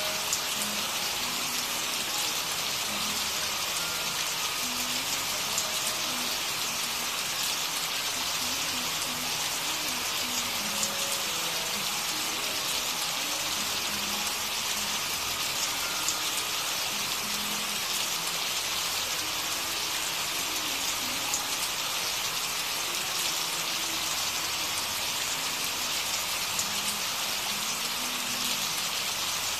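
Steady recorded rain, an even hiss of rain falling on a surface with no change throughout, used as the masking sound of a subliminal audio track.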